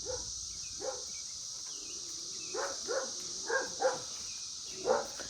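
A dog barking repeatedly, short single barks a second or so apart, over a steady high hiss.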